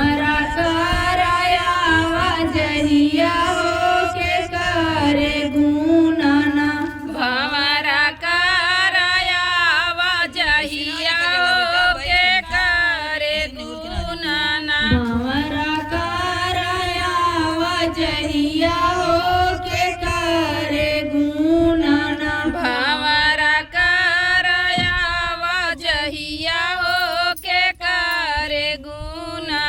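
A woman singing a Bhojpuri folk song in long, wavering held notes, over a steady low accompaniment.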